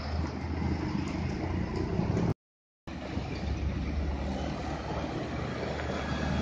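Diesel engines of concrete mixer trucks running as they pass, a steady low hum under road and traffic noise. All sound drops out for about half a second midway, then resumes.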